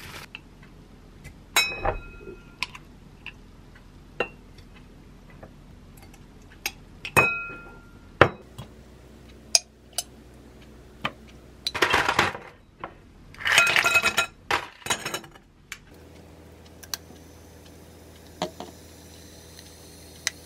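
Glass clinking and tapping as syrup is spooned from glass jars into a stemless glass, some strikes ringing briefly. Then two rattling clatters of ice cubes dropping into the glass.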